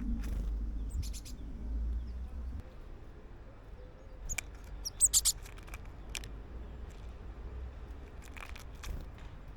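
Small wild garden birds chirping, with scattered short high calls and a quick run of three loud chirps about halfway through. A low background rumble fades out in the first two or three seconds.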